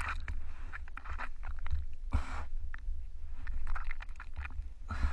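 Wind rumbling on the camera microphone on a sailboat at sea, with small knocks and rustles of handling and a few short hissing bursts, about two seconds in and again near the end.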